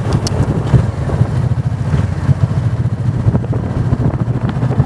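Motorcycle engine running steadily at low road speed, heard from the bike itself as a constant low drone.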